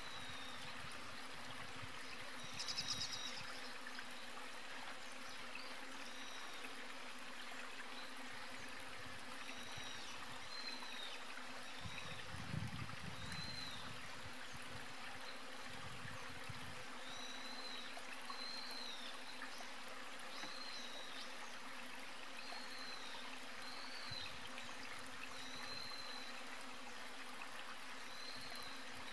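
Steady outdoor background hiss with short, high chirps repeating every second or two. A brief, louder buzzy burst comes about three seconds in, and a soft low thump comes near the middle.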